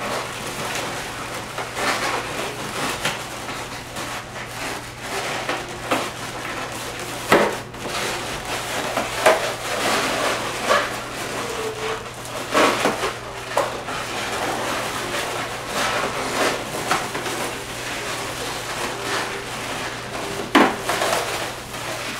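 Inflated latex modelling balloons being handled, twisted and joined, rubbing and squeaking against each other, with several sharp taps and knocks.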